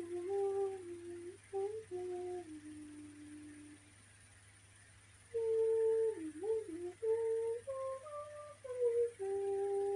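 A woman humming a slow tune with closed lips, in held notes that step up and down, with a break of about a second and a half midway.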